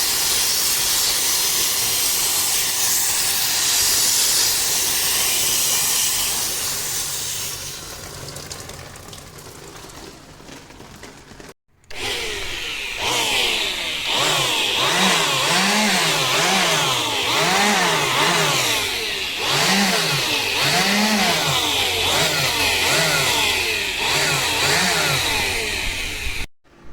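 Water spray hissing steadily, as from a pressure washer cleaning an air-conditioner, fading out over several seconds. After a cut, a loud mechanical sound with its pitch rising and falling over and over, about one sweep every 0.7 seconds.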